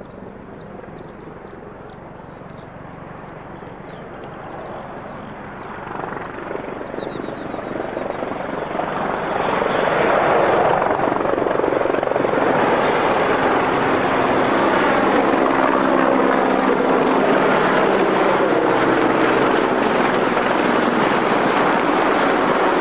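Formation of C-130 Hercules turboprop tankers and a helicopter flying past, a mix of propeller and rotor drone. It grows steadily louder over the first ten seconds as they approach, then stays loud overhead with a steady low propeller hum. Faint bird chirps can be heard at the start.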